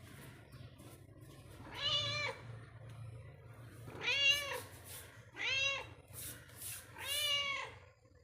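Domestic cat meowing four times, each meow a short call that rises and then falls in pitch, about a second and a half apart.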